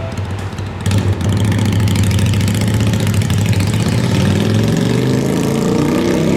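A vehicle pulling away at a railway level crossing, its motor rising steadily in pitch over the last couple of seconds above a steady low hum.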